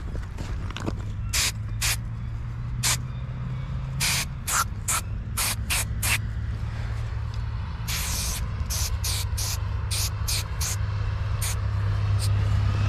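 Hand trigger spray bottle of watered-down paint squirting in quick short hisses, spaced irregularly and sometimes in rapid runs, with one longer spray about eight seconds in. A low hum underneath grows louder near the end.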